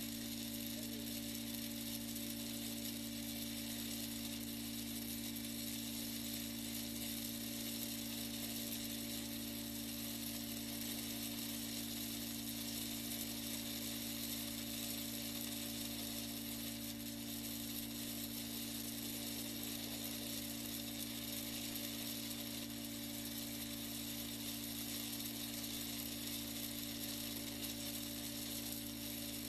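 Steady hiss of heavy rain, heard from inside a moving car, over a constant low hum.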